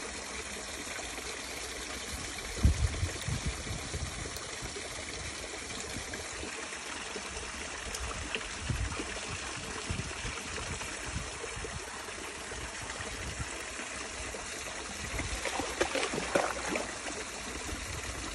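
Shallow woodland stream trickling steadily, with a few low bumps about three seconds in and a short spell of louder splashing about sixteen seconds in.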